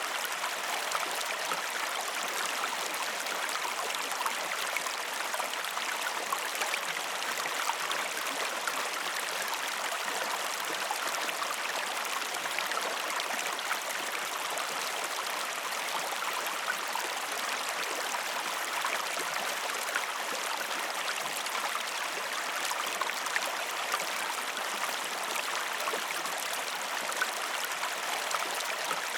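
Mountain stream cascading over rocks: a steady rush of water with fine splashing and gurgling, no birds.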